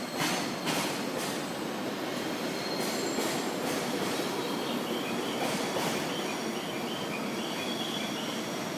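JR 205 series electric commuter train running into the platform, its wheels clacking over rail joints several times in the first few seconds, then a thin high squeal from the wheels and brakes as it slows.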